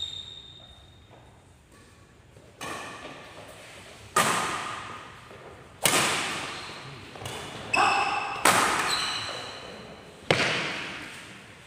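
Badminton rackets smacking a shuttlecock in a fast doubles rally: six sharp hits about a second and a half apart, each echoing in the hall.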